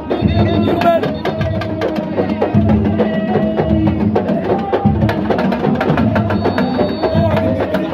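Fast drumming music: dense, rapid drum strokes with a held, wavering tune over them.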